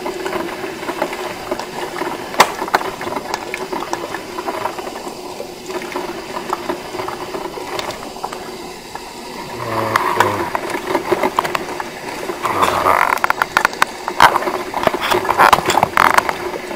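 Krups 985 combination espresso and drip coffee maker warming up: a steady hum under scattered mechanical clicks and rattles. The clicks get busier and louder from about two-thirds of the way through.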